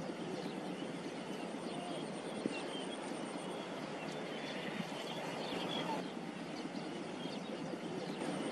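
Steady outdoor background noise with a few faint, short high squeaks scattered through it.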